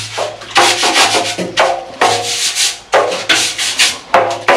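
Cement mixer drum being cleaned out by hand: repeated scraping strokes against the drum, about two a second, some with a ringing, squealing edge.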